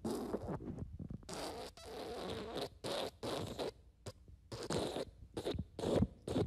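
Fart sound effect: a run of short sputtering bursts, with one longer drawn-out burst about a second in.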